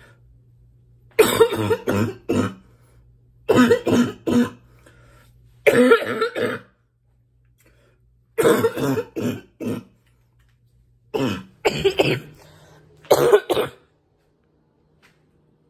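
A woman's congested, barking cough: six fits of several harsh coughs each, a second or two apart. The congestion is one she puts down to allergies.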